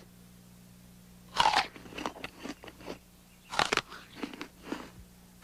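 An apple being bitten and chewed: a loud crisp crunch about a second and a half in, then chewing crunches, then a second crunching bite a little over two seconds later, again followed by chewing.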